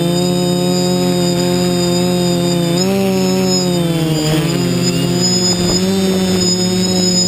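Electric multirotor drone's motors and propellers running with a steady, pitched hum and a high whine; the pitch drops about four seconds in as the motors slow, then rises again near the end.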